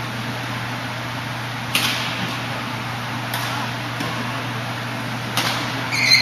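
Badminton hall ambience between rallies: a steady low hum with a few sharp taps spaced a second or two apart, and a short high squeak near the end.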